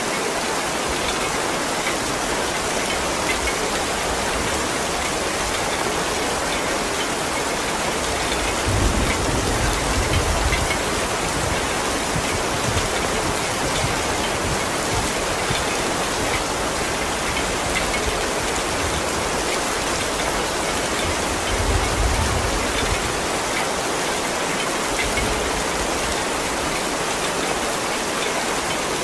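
Heavy rain falling steadily, a dense, even hiss. There are two brief low rumbles, one about nine seconds in and another about twenty-two seconds in.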